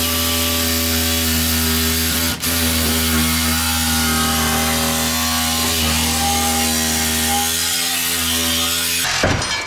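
Cordless reciprocating saw (sawzall) running under load, cutting under the truck with a steady motor hum. There is a brief break about two and a half seconds in, and the saw stops shortly before the end.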